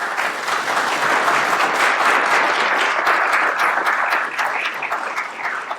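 An audience applauding in a hall, a dense patter of many hands clapping that thins out and dies away near the end.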